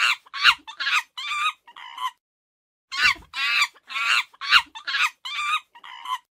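An animal calling in two bouts of short, high-pitched repeated calls, with a pause of about a second between the bouts.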